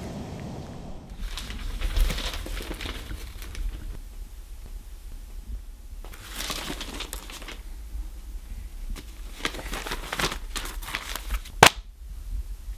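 Newspaper pages rustling and crinkling as they are handled and turned, in three bouts, followed by a single sharp slap near the end as the paper is put down on the table.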